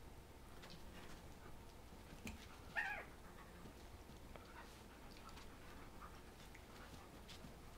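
A dog's single short yelp-like whine about three seconds in while two dogs play-wrestle, against a quiet background with a few faint soft knocks from the scuffle.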